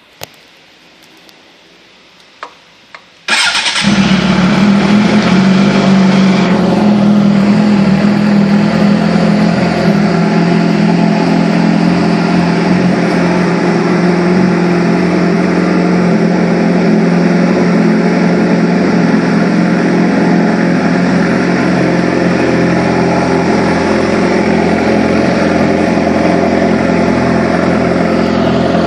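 Suzuki GSX-R 750 K9's inline-four engine starting after a few faint clicks about three seconds in, catching at once, then running loud and steady through its exhaust.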